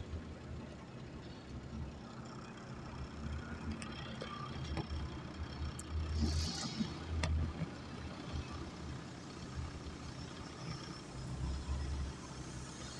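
Diesel engine of an XGMA wheel loader running under work, a low steady rumble that swells now and then as it is throttled up. A short hiss comes about six and a half seconds in.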